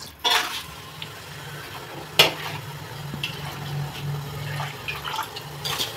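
Soaked basmati rice and its water being tipped and ladled into a cooking pot, a steady wet rush and splash of water. A sharp metal knock sounds about two seconds in.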